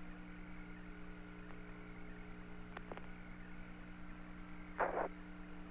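Open Apollo air-to-ground radio channel between transmissions: a steady electrical hum and hiss, with two faint clicks about three seconds in and a short burst of static near the end.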